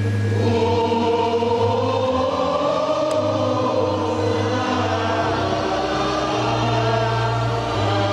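Church choir singing in long held notes over a steady low sustained accompaniment.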